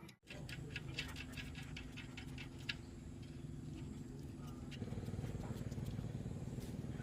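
A steady low machine hum with light clicks and taps over it; the hum changes about five seconds in.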